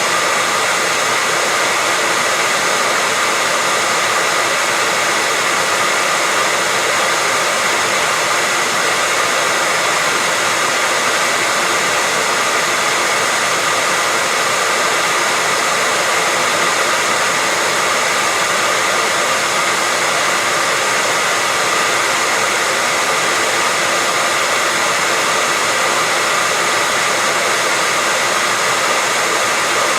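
Hair dryer running steadily: an even blowing hiss with a faint steady whine in it, unchanging throughout.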